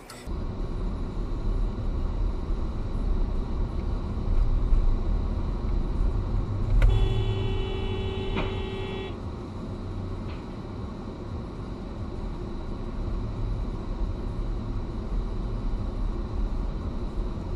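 Steady engine and road rumble inside a moving car. About seven seconds in, a car horn sounds one steady blast for a bit over two seconds, a warning as another car slides across the road ahead.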